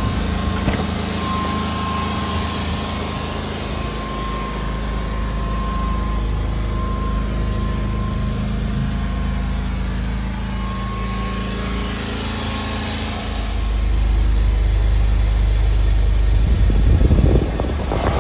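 1995 Honda Acty truck's small three-cylinder engine idling steadily, with the low rumble growing louder for a few seconds near the end.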